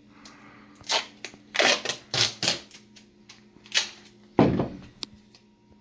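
Duct tape being pulled and torn in several short, rasping rips while a bundle of cardboard Roman candle tubes is taped together; the loudest rip comes about four and a half seconds in.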